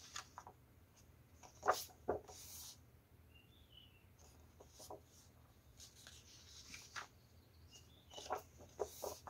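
Sheets of 160 g printed paper being handled and turned over: faint rustles and slides of paper on paper in short clusters, the loudest about two seconds in and near the end.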